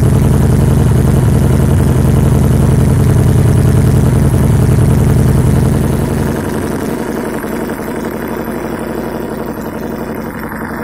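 A machine running steadily with an even, low drone, like an engine or motor. About six seconds in it gets quieter and loses its deep low end, then keeps running.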